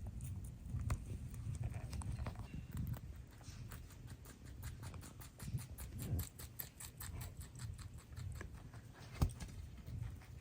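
Rabbits munching fresh greens, grasses and flowers: a quick, even run of crisp crunching clicks, about five a second, with one sharper crunch about nine seconds in.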